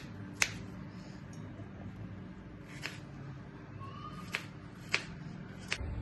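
Sharp taps on a chopping board as strawberries are cut or set down: about five short clicks at uneven intervals over a faint steady background.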